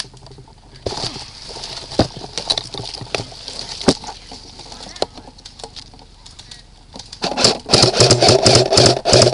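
Airsoft guns firing: scattered single shots and clicks for the first few seconds, then a loud, rapid string of shots in quick bursts over the last two seconds.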